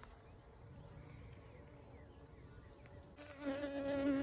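A honeybee defending its hive buzzes close to the microphone. A loud, steady, pitched buzz starts about three seconds in.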